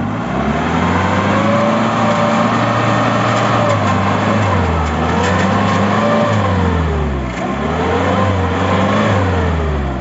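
Mahindra Thar's engine revved hard and held high under load while the 4x4 is stuck in a deep muddy rut. The revs dip sharply about seven seconds in, climb again, and fall away near the end.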